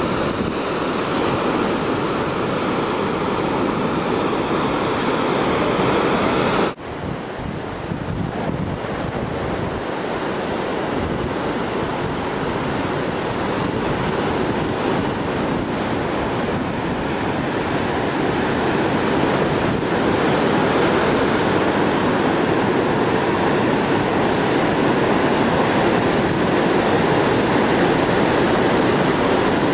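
Ocean surf breaking and washing over a rocky, boulder-strewn shore, a steady rush of water with wind on the microphone. The sound drops away suddenly for a moment about seven seconds in, then the surf carries on.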